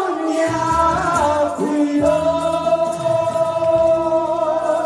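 A singer on a microphone performing a pop song over an amplified backing track with a bass line. A short phrase with sliding pitch leads into one long held note from about two seconds in.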